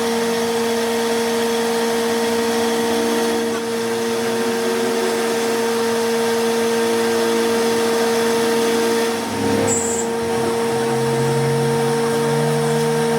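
A power tool's electric motor running steadily with a constant hum, dipping briefly about nine seconds in.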